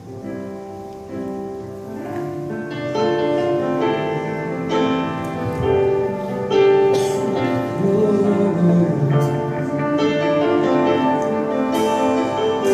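Piano or keyboard playing the slow introduction to a worship song, held chords that grow fuller about three seconds in.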